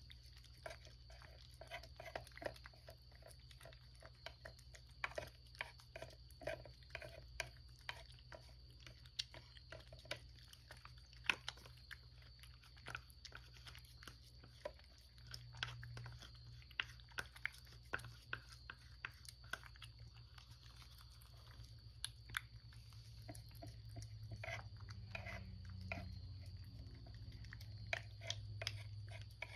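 A cat eating wet canned food from a ceramic dish: quick, irregular chewing clicks.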